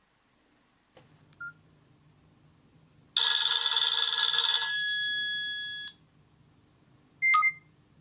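Nokia 6680 mobile phone's loudspeaker playing ringtone previews as its tone list is scrolled. There is a short beep, then a loud tone from about three seconds in that lasts nearly three seconds and cuts off, and a brief two-note blip near the end.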